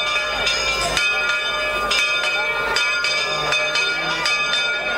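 Church bells ringing, struck over and over so that their tones keep sounding, with a crowd's voices underneath.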